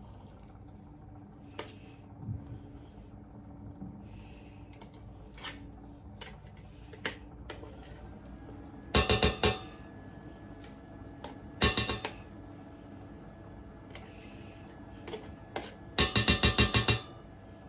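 Three bursts of rapid metal clatter, a utensil striking cookware several times a second, over a low steady hum; the longest burst comes near the end.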